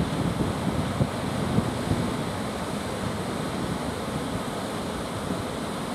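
Sea surf washing and breaking, with gusty wind rumbling on the microphone, the gusts easing after the first couple of seconds.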